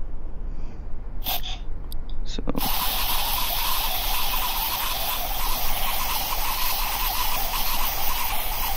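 A few faint clicks, then a steady hiss that sets in suddenly about two and a half seconds in and holds at an even level.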